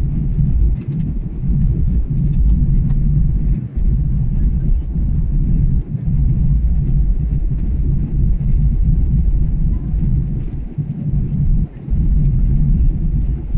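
Jet airliner cabin noise in flight: a steady low rumble of engines and rushing air, heard from inside the passenger cabin, dipping briefly a few times.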